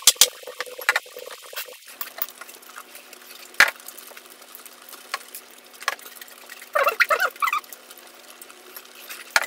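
Goat meat hot pot bubbling at a boil in a wide pan, with irregular pops and clicks of bursting bubbles.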